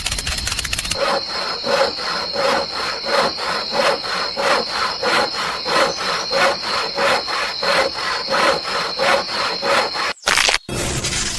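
Hand sawing: a quick, even back-and-forth rhythm of rasping saw strokes, with a thin steady high tone beneath them. The strokes break off briefly near the end, then resume.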